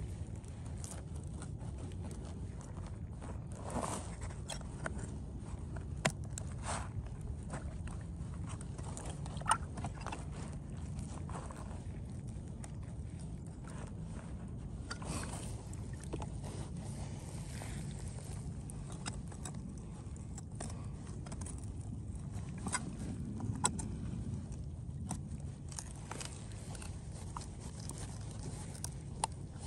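Close handling noise of a plastic water pipe being worked by hand: scattered scrapes, knocks and clothing rustle, over a steady low hum.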